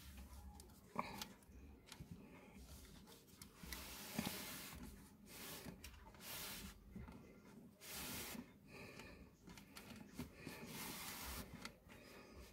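Faint handling noises: a small plastic model computer being turned and shifted on a velvet cloth, with soft irregular rustles and a few light clicks.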